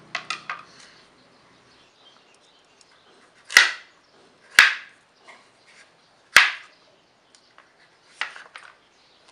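A chef's knife cutting through firm raw pumpkin and striking a plastic cutting board. Three loud cuts come in the middle, each a short crunch that ends in a sharp click, with lighter cuts near the start and near the end.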